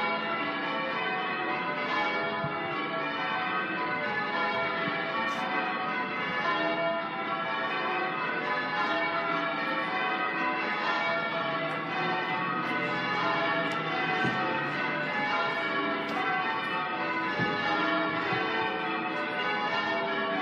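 Church bells being change-rung by a team of ringers: a continuous, even cascade of overlapping bell strikes with no pause.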